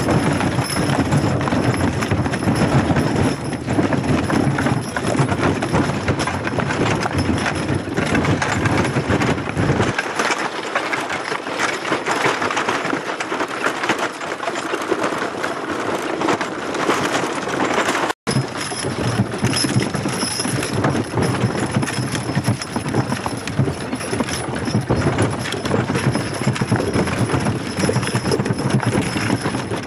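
Horses' hooves clip-clopping with the jolting rattle of a horse-drawn wagon on a bumpy dirt track. The deep rumble falls away about ten seconds in, and the sound drops out for a split second at about eighteen seconds.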